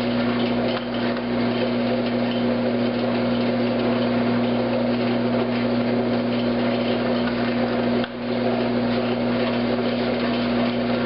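Bandsaw running steadily with a constant motor hum, resawing a wood block into thin veneer. The sound drops briefly about eight seconds in.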